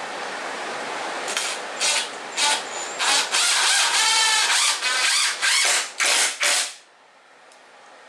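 Ridgid cordless driver driving a nut into wood in stop-start bursts of the trigger: three short bursts, then a longer run whose pitch wavers as the motor loads, then three more short bursts that stop about two-thirds of the way through.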